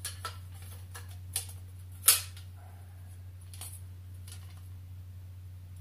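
Light clicks and knocks of a takedown bow's limb and riser pieces being handled and slid together, the loudest about two seconds in, over a steady low hum.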